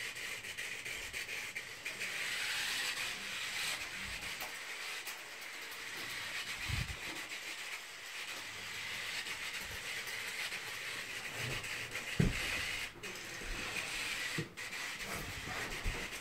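WowWee CHiP robot dog's wheel motors giving a steady whirring hiss as it drives across carpet after its ball, with a few soft thumps.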